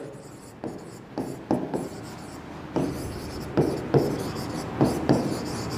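A stylus handwriting on the glass of an interactive display: a string of short, irregular taps and scrapes as letters are formed.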